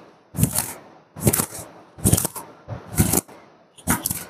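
A towel swatted against long wet hair in a steady rhythm, about one stroke a second; five short, sharp strokes, each a damp slap of cloth on hair.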